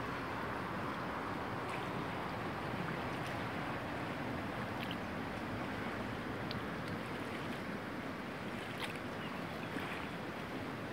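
Steady rushing of a river's current flowing over a shallow riffle, with a few faint clicks.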